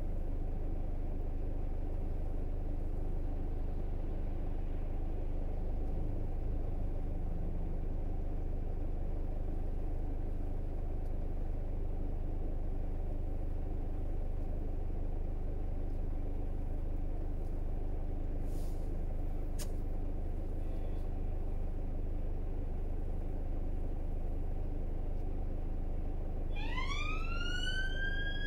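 Steady low road and engine rumble of a car being driven in city traffic. About two seconds before the end, an emergency vehicle's siren starts, its wail rising steeply in pitch.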